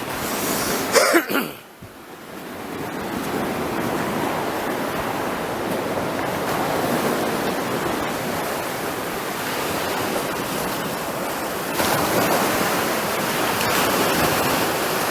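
Sea waves washing on the beach: a steady rushing noise that grows a little louder near the end, with a short voice sound about a second in.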